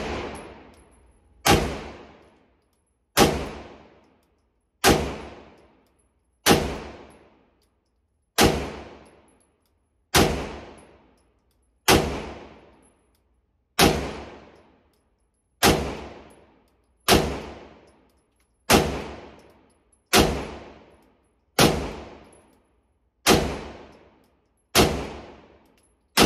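Beretta M9A4 9mm pistol fired in slow, evenly paced single shots, about fifteen of them, one every second and a half or so. Each shot is a sharp crack that echoes briefly in the indoor range.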